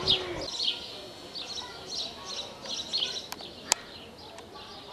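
Small birds chirping: short, high, falling chirps, repeated about twice a second. Two sharp clicks a little after three seconds in.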